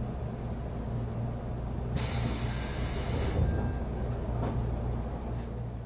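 Interior sound of a JR Central 373 series train car: a steady low rumble and hum, with a burst of compressed-air hiss about two seconds in lasting just over a second, typical of the air brakes as the train slows to a stop.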